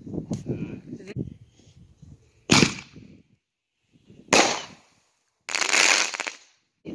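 1.5-inch aerial ball shells going off: two sharp bangs about two seconds apart, then about a second of harsh crackling noise near the end that stops abruptly.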